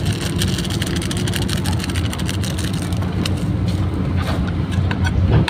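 A steady low rumble throughout, with light clicks and crackles of plastic packaging and utensils being handled.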